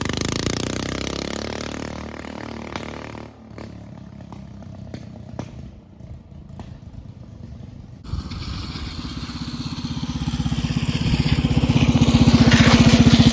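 Small single-cylinder minibike engine running. Its pitch falls over the first three seconds, then there is a quieter stretch with a few clicks. About eight seconds in it comes back loud and grows louder to a steady high rev near the end.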